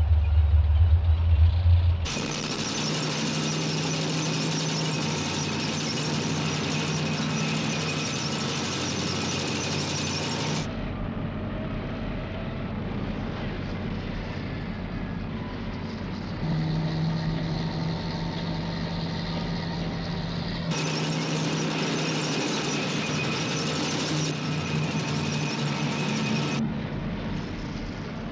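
Film soundtrack of a column of tanks and military vehicles driving on dirt roads: steady engine and track noise with a low drone. It opens with a deep hum that cuts off about two seconds in, and its sound shifts abruptly several times at the cuts between shots.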